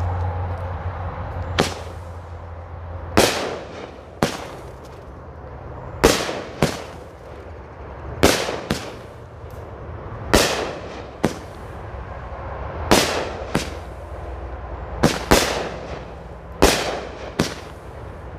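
A 12-shot consumer firework cake firing one shot about every two seconds. Each shot is a sharp bang followed closely by a second, softer pop.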